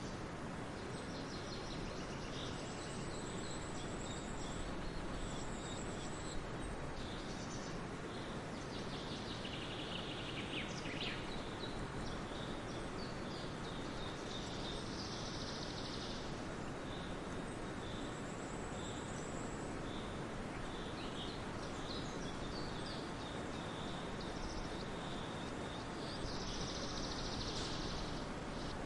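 Forest ambience: several birds singing and calling, with high thin trills and short chirps scattered throughout over a steady background rush.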